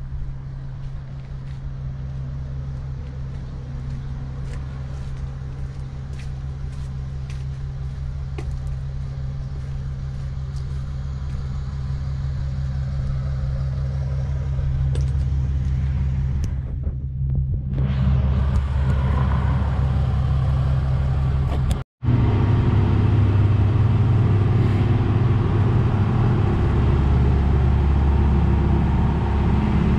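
Diesel truck engine running with a steady low rumble. A sudden break about two-thirds of the way through, after which the engine sounds louder and closer.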